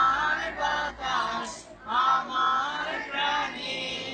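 A large group of schoolchildren singing together in unison, in short phrases with brief breaks between them.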